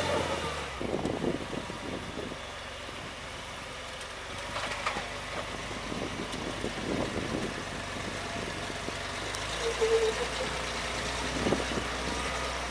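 Off-road vehicle's engine running low and steady, at crawling pace, with a few scattered short knocks.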